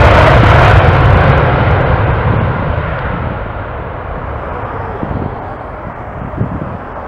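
Boeing 777-300ER's two General Electric GE90-115B turbofans at takeoff thrust: a loud, deep rushing jet noise that fades steadily as the airliner rotates, lifts off and climbs away. The high hiss drops out about a second in.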